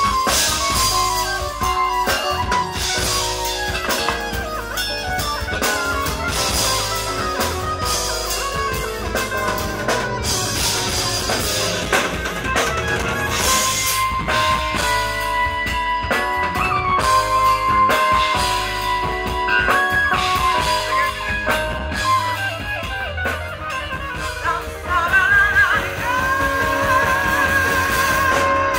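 Live zouk-jazz band playing: drum kit, electric bass and keyboards, with a woman singing held, wavering notes near the end.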